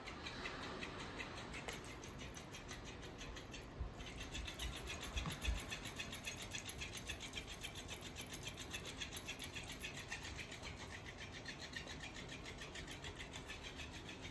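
Motorised floppy fish cat toy flapping on a tile floor, making a steady, rapid, faint ticking. There are a few dull thumps about five seconds in as the cat grapples with it.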